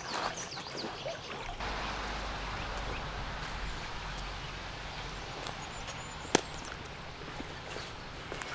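A small woodland stream flowing steadily, a constant rush of water. A few light crackles come in the first second or so, and there is one sharp click about six seconds in.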